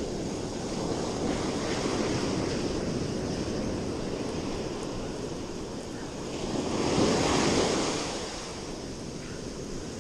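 Ocean surf breaking and washing up the beach, with wind buffeting the microphone; the rush swells loudest about seven seconds in.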